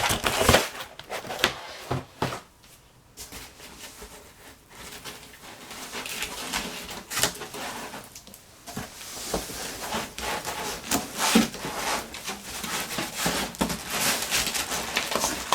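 Packaging being handled and unwrapped: crinkling and rustling with scattered clicks and knocks, quieter for a moment about two seconds in.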